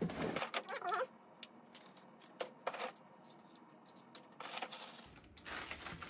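Hands rummaging in a cardboard box of old smoke detector parts: scattered light plastic clicks and knocks, then a short burst of crinkling wrapping about four and a half seconds in.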